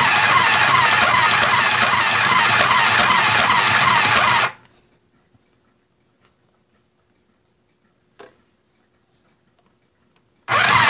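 Aldi mini sewing machine's small electric motor running as it stitches through card, a fast mechanical whirr with a quick repeating needle rhythm, stopping abruptly about four and a half seconds in. One faint click follows, and the machine starts up again just before the end.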